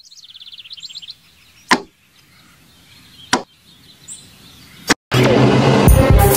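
Edited intro sound effects: a fast run of short rising chirps in the first second, then three sharp hits about a second and a half apart. Electronic music with a beat starts about five seconds in.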